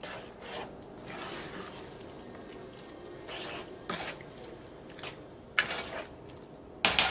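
A spoon stirring bow tie pasta through a thick cream sauce in a skillet, with a few sharp clicks and knocks, the loudest near the end.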